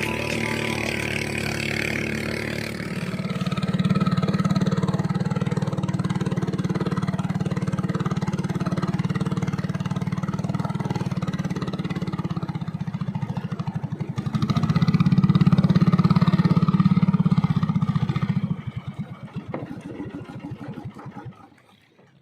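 A small engine running steadily. It picks up speed about three seconds in and again around fifteen seconds. Near the end it slows into separate chugs and dies away.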